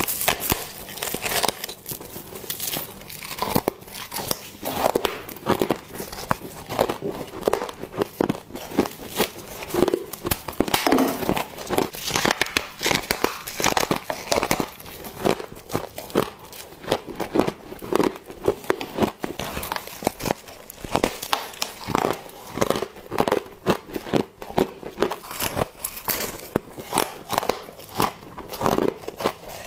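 Close-up bites into flaky humidifier frost: a dense, irregular run of crisp crunches and crackles, one bite after another.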